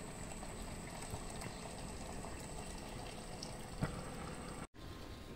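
Steady hiss of a gas stove burner heating a wok of water set up as a steamer, with one short knock about four seconds in.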